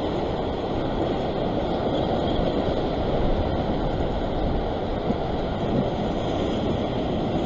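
Ocean surf surging and breaking against a rock ledge, a steady rush of water, with wind buffeting the microphone.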